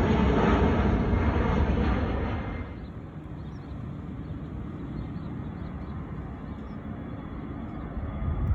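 Jet airliner's engines roaring at takeoff power, loud at first; about two and a half seconds in the sound drops off sharply, leaving a fainter low rumble.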